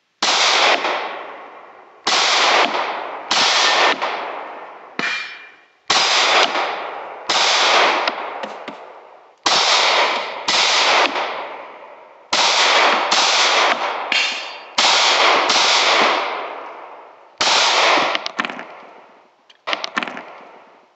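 Taurus G2 semi-automatic pistol fired in a steady string of shots, roughly one every second, each shot followed by a long ringing echo that dies away before the next.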